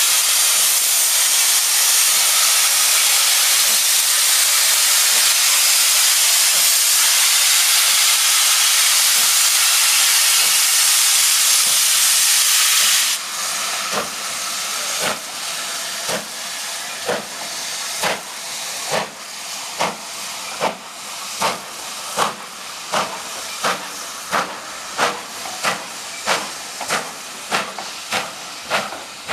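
Steam locomotive hissing loudly and steadily with steam, then, after a sudden change about halfway in, pulling away: sharp exhaust chuffs that slowly quicken from about one a second to about one and a half a second as the train gathers speed.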